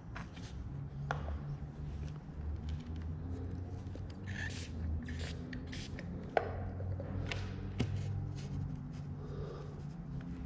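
Hands handling casing trim and glue bottles on a concrete floor: scattered clicks, taps and rubbing, with a few short hissy bursts near the middle, over a low steady hum.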